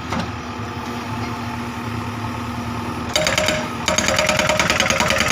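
JCB backhoe loader's diesel engine running steadily, then about three seconds in its Hardrock hydraulic rock breaker starts hammering with rapid repeated blows, stopping briefly and starting again.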